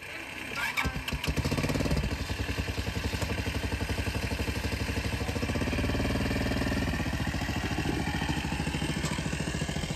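Motorcycle cargo tricycle's small engine catching about a second in, then running at a steady, evenly pulsing idle as the tricycle creeps off slowly.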